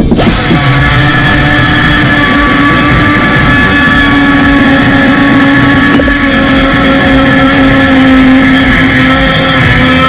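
Pneumatic die grinder running steadily at high speed with a high whine, its carbide bit cutting into a Mazda 20B rotary engine housing while porting it.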